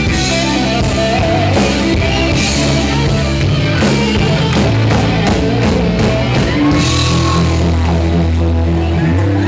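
Hard rock band playing live, loud: electric guitar lines over held bass notes and steady drums with cymbal hits.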